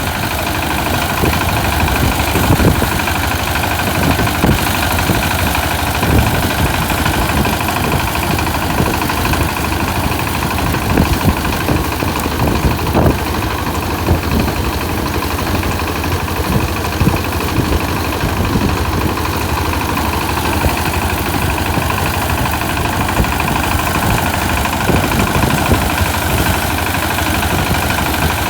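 Engine of a small rice-harvesting machine running steadily, a constant mechanical drone with a fast knocking rhythm that holds without change.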